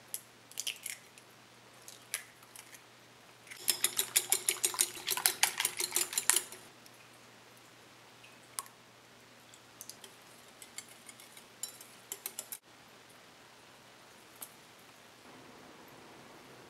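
A few sharp taps of eggshell cracking against a glass mixing bowl, then, about four seconds in, nearly three seconds of quick clinking as the eggs are beaten briskly in the glass bowl. After that, quieter scattered ticks and soft knocks as ingredients are added, over a steady low hum.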